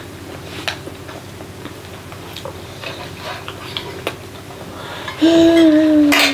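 Light clicks and taps of a fork and fingers on steel plates during a meal. About five seconds in, a young child's voice comes in with one long, slightly falling hum-like tone lasting about a second.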